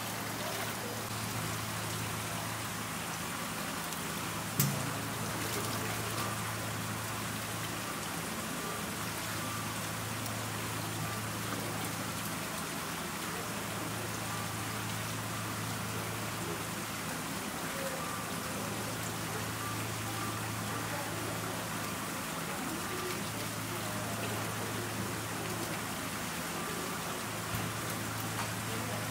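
Faucet water pouring in a thin stream into a stainless steel tank of live sweetfish, a steady splashing hiss. Under it a low hum comes and goes every few seconds, and a single sharp knock sounds about four and a half seconds in.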